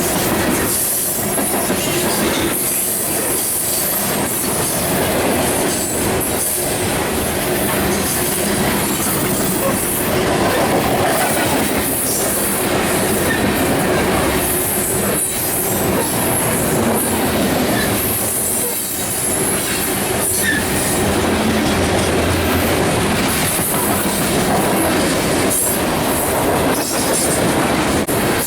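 CSX freight train cars rolling past: a steady, loud wheel-on-rail noise with a high-pitched hiss from the wheels and repeated clicks as the wheels pass over rail joints.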